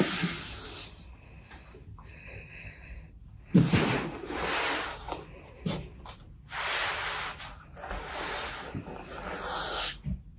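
A large fabric absorbent spill pad being handled on a wooden table: it rustles and slides across the surface in several bursts as it is laid down, smoothed flat and lifted up, with a sharper rub about three and a half seconds in.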